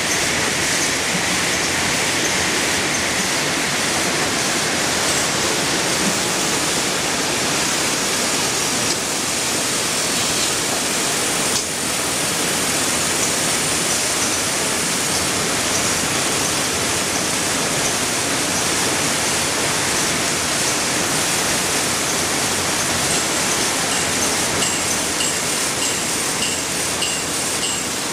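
Steady, loud machinery noise of a running toilet paper production line: the rewinding machine, the roll-cutting saw and the conveyor together. A regular light ticking joins in near the end.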